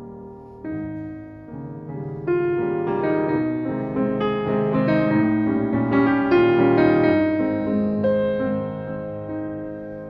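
Background piano music: a slow piece whose notes build and grow louder toward the middle, then ease off near the end.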